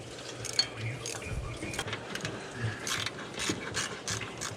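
A run of light mechanical clicks, several a second at an uneven pace, from hand-tool work on the truck.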